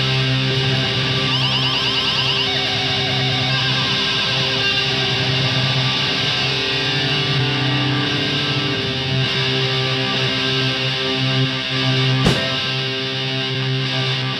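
Garage rock trio playing: distorted electric guitar and bass holding sustained notes. One sharp click comes about twelve seconds in.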